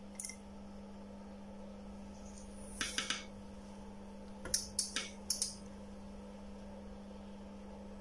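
A few light clicks from an oscilloscope's front-panel buttons and knobs being worked, in a cluster about three seconds in and several more around five seconds, over a steady low hum.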